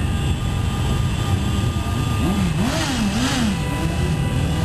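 Many motorcycle engines running together as a slow column of bikes rides past. About halfway through, one engine is revved up and down several times in quick succession.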